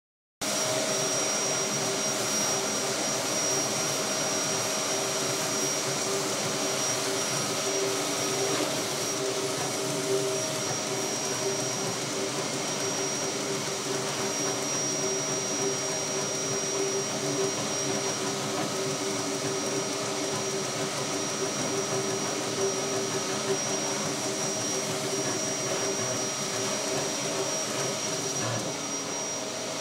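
Homemade 40 W CO2 laser cutter running a job: a steady rushing of air from its fans and air assist, with a few constant whining tones over it.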